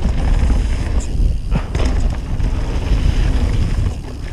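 Downhill mountain bike rolling fast over a rough dirt trail: a steady rumble of wind on the GoPro microphone and tyres on dirt, with a few sharp knocks and rattles from the bike over bumps.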